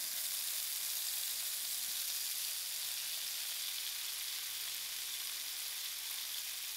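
Boiled broad beans sizzling in a frying pan of hot oil, just added: a steady, even hiss.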